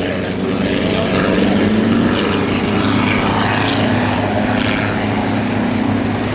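Small helicopter flying an aerobatic manoeuvre: a steady, loud drone of engine and rotor, with a brief rise in pitch about a second and a half in.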